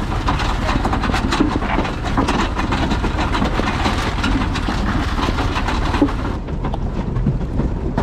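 Massey Ferguson 711 potato harvester working, its chains and turning parts rattling and clattering continuously, over the steady drone of the Massey Ferguson 35 tractor's engine. The rattle turns duller from about six seconds in.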